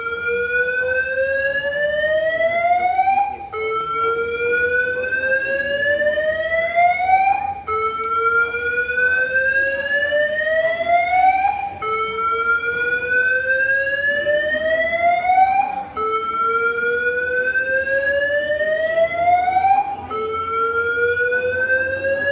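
Airport alarm siren sounding continuously: a single tone that rises slowly over about four seconds, drops back abruptly and starts over, again and again.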